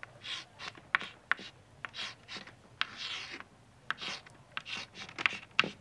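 Chalk writing on a blackboard: a quick run of short scratching strokes, with sharp taps as the chalk strikes the board and one longer stroke about three seconds in.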